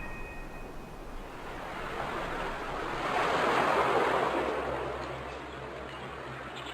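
Surf: a rush of noise from a wave washing in, swelling to a peak about halfway through and then easing back.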